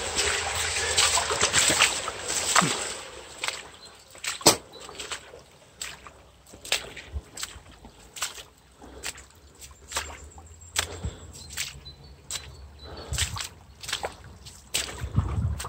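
Footsteps wading through a shallow, fast brook, each step a sharp splash, over the steady trickle of the stream. The first two or three seconds are louder, coming out of a concrete culvert pipe.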